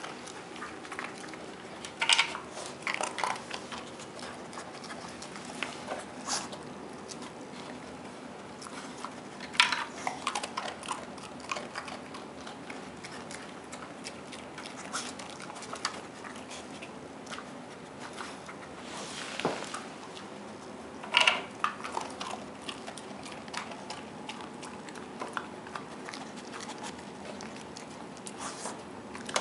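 Irregular plastic clacks and knocks from a Kyjen Star Spinner treat puzzle as a dog noses and paws its spinning layers, with the dog chewing treats in between. The loudest clacks come about 2, 10 and 21 seconds in.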